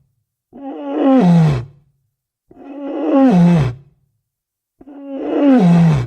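Walrus calling: three drawn-out bellows, each a little over a second long, with short silent gaps between them. Each call holds its pitch and then slides down at the end; the third is cut off near the end.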